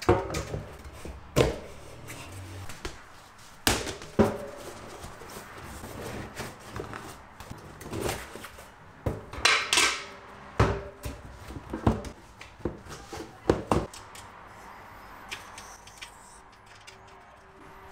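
Fat-bike tire and liner being fitted onto a spoked wheel rim by hand: rubber scuffing against the rim with irregular knocks and taps, a longer scuffing stretch about nine to ten seconds in, and quieter handling near the end.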